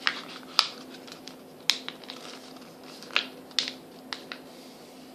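A sheet of paper being folded and creased by hand: several short, sharp crackles, a few of them close together.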